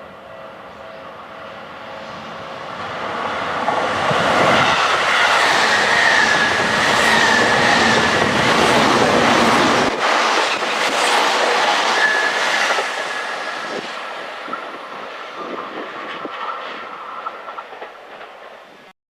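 Electric commuter train passing at speed: wheels clicking over rail joints with a high whine, building over a few seconds, loud for about nine seconds, then fading away.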